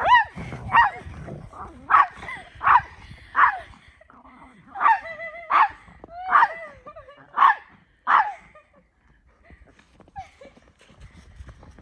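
Dog barking excitedly during play, about ten short, sharp barks in quick succession over the first eight seconds, then stopping.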